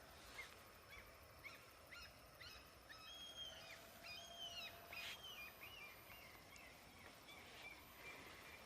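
Faint bird calls: a run of short, repeated chirps, each rising and falling, over quiet outdoor background noise.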